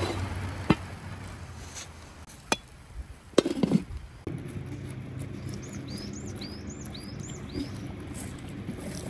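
Cookware knocking on a cast-iron griddle lid: a few sharp knocks and a short clatter as an aluminium pot heaped with hot coals is set down on it. Then a steady outdoor background in which a small bird chirps about five times in quick succession.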